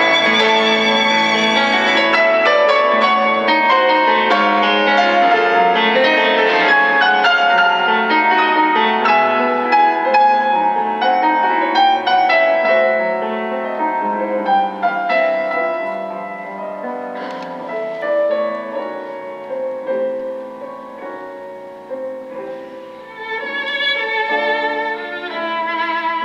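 Recorded violin music with piano, played back through a single-ended tube amplifier with Cunningham CX-345 output tubes and small speakers, with little deep bass. It softens for a quieter passage past the middle and swells again near the end.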